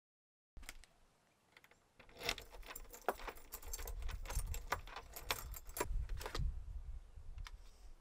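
A bunch of keys jangling and clinking in a garage door lock as the lock and handle are worked. It is a quick run of metallic clicks that starts about two seconds in and lasts some four seconds, over a low rumble.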